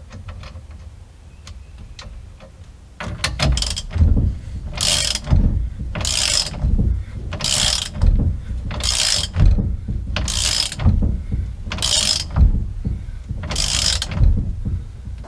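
Ratchet wrench tightening the new grade 8 nut that holds the steering wheel on the steering shaft: about eight ratcheting strokes, roughly one every one and a half seconds, starting about three seconds in.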